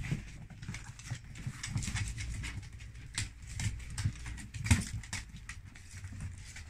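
A husky and her puppies scrabbling about on a wooden parquet floor, claws clicking and tapping irregularly, with one louder knock a little under five seconds in.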